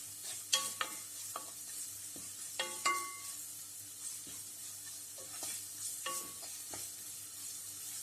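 Coarsely crushed pepper, ginger, garlic and fennel sizzling in hot coconut oil while being stirred. The spatula scrapes the pan and gives several short ringing clinks against it.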